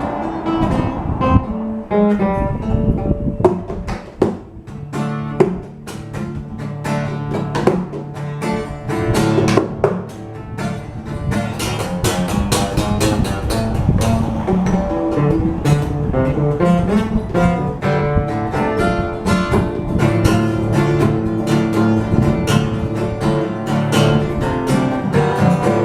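Instrumental break of an Appalachian folk tune on plucked acoustic string instruments, mainly acoustic guitar, picking a quick run of notes that grows busier about halfway through.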